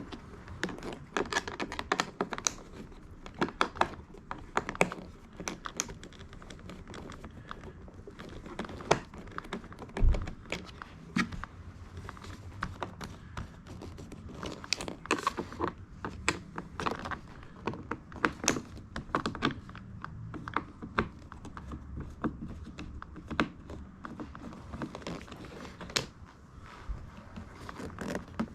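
Irregular clicks, taps and knocks of plastic parts being handled and unclipped: the Audi A3 driver's door window switch unit being worked on by hand, with one heavier knock about ten seconds in.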